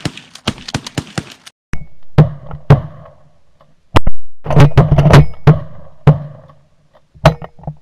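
A series of shotgun shots from hunters' pump-action shotguns fired at a passing flock of geese, the loudest and closest about four seconds in, with several more following it.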